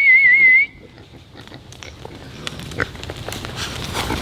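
A loud warbling whistle, the call that brings the pigs out to eat, cuts off under a second in. Then comes a herd of pigs grunting as they come running in, growing louder as they near.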